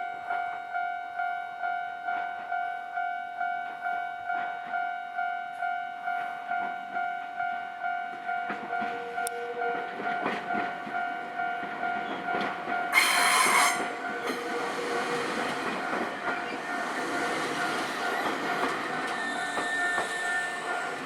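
A Japanese railway level-crossing warning bell rings steadily, about two strikes a second. A Nankai Kada Line train approaches, sounds its horn once briefly about 13 seconds in, then runs over the crossing with a steady rumble of wheels while the bell keeps ringing.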